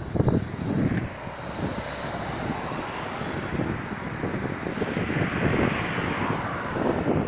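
A passing motor vehicle's steady rush that swells to a peak about five seconds in and then eases, with wind gusts thumping on the microphone near the start and end.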